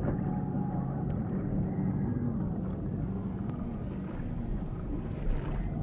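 Motorboat engine running as a steady low drone, its pitch rising and falling a little.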